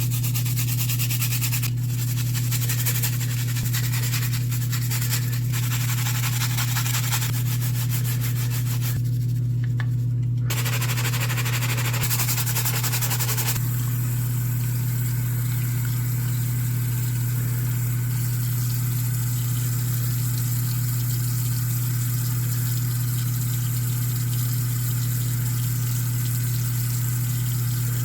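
An electrical appliance running with a steady low hum and a hiss over it. The hiss changes in texture during the first thirteen seconds or so, then settles.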